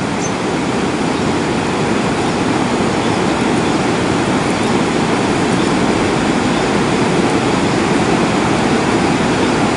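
Steady, loud rush of a flowing river, an even noise with no break.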